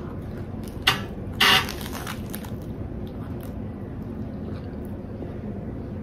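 Crisp lettuce crunching as a bite is taken out of a stuffed lettuce wrap: a sharp crack about a second in, then a louder crunch half a second later, followed by soft chewing.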